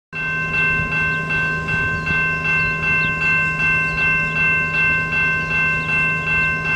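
Railroad grade-crossing bell ringing steadily at about two and a half strokes a second, over the low steady drone of a distant diesel locomotive.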